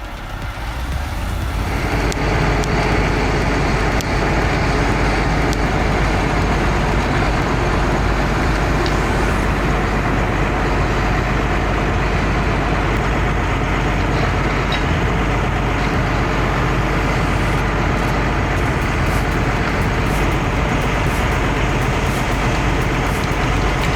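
Heavy diesel vehicle engine running steadily under load. It builds up over the first couple of seconds, then holds a constant heavy drone.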